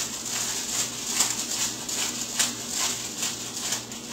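Hand pepper mill grinding black peppercorns: a gritty crackling in short repeated twists, two or three a second.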